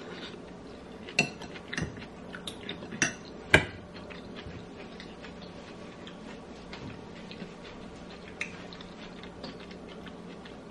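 Metal spoon clinking against a pot and bowl: several sharp clinks in the first few seconds, the loudest about three and a half seconds in, then fainter scattered clinks, over a faint steady hum.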